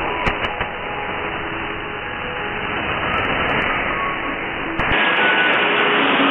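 A weak shortwave AM broadcast on 9.750 MHz heard through a communications receiver: a thick bed of hiss and static with faint program audio under it and a few clicks near the start. About five seconds in, the audio switches to the second receiver, a Perseus SDR, and the sound turns wider and brighter with less low rumble.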